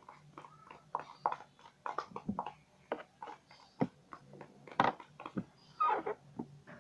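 Plastic spoon stirring and slapping thick, sticky slime in a plastic tub: an irregular string of wet clicks and smacks as the slime clumps and pulls from the spoon, the mixture nearly set.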